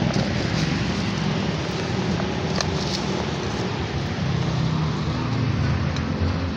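Steady low rumble of road traffic, with a few faint clicks about two and a half seconds in.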